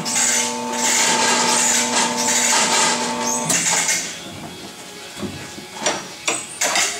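Touchless tyre changer running, a steady motor hum with hiss that cuts off after about three and a half seconds. A few sharp metal clanks follow as tools are worked on the tyre and rim.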